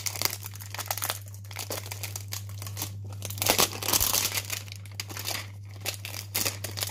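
Clear plastic shrink-wrap crinkling and tearing as it is pulled off a cardboard product box, in irregular crackles with a steady low electrical hum beneath.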